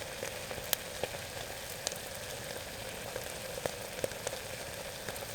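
Food frying in fat in a pan on a camping stove: a steady sizzle with scattered pops and spits.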